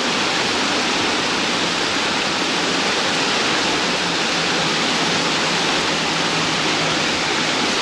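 Creek water rushing, a steady, even hiss.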